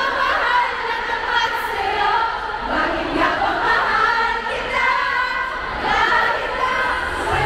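A large crowd of fans, many high voices sounding together at once, steady throughout.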